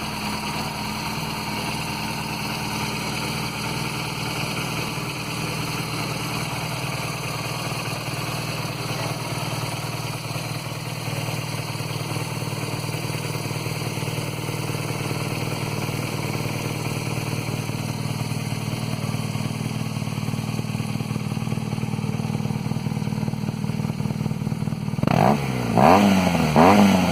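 BMW R 1200GS flat-twin engine idling steadily through a Hurricane Evolution aftermarket exhaust, then revved in a run of quick throttle blips near the end.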